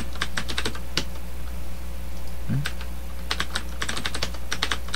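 Computer keyboard typing, clicking out keystrokes in quick runs with short pauses between them, over a steady low hum.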